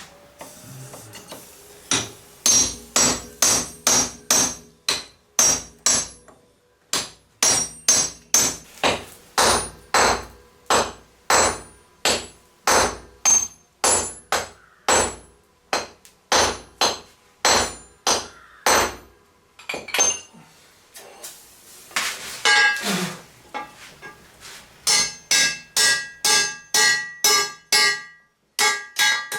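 Hammer blows on hot steel over an anvil, forging a hammer head from high-carbon axle steel: a long run of steady strikes about one and a half a second, a short pause, then a quicker run of blows with the anvil ringing.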